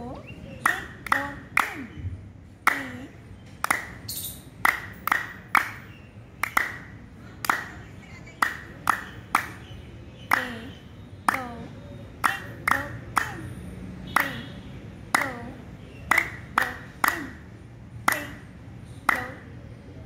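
Hands clapping, about two claps a second, in a loose rhythm with some claps in quick twos and threes: the clapping exercise (tali vadan) of children's yoga.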